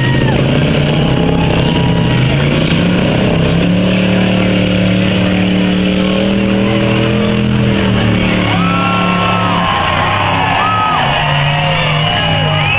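Demolition derby car engines running and revving: the engine pitch rises about four seconds in, holds, and drops back near eight seconds, over a continuous loud din.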